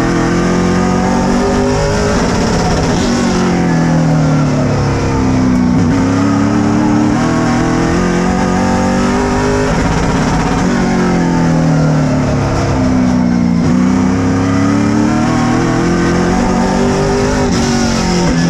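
A stock car's engine heard from inside the cockpit at racing speed, its pitch rising and falling every few seconds as the car accelerates down the straights and backs off into the turns of an oval.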